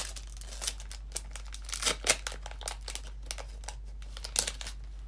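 Crinkling and rustling of Pokémon trading cards and their packaging being handled, in short irregular rustles, with a sharp crackle right at the start and a few louder ones about two seconds in.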